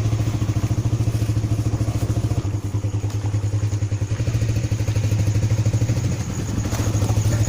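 A low, steady drone that throbs quickly and evenly, like a motor running at idle. It dips slightly about two and a half seconds in.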